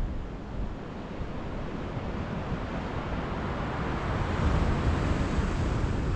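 Sea surf washing onto the shore with strong wind buffeting the microphone; the wash builds about three seconds in.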